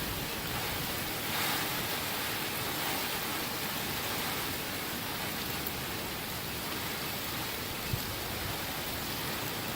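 Heavy rain and gusting storm wind, a steady rushing hiss that swells slightly about a second and a half in.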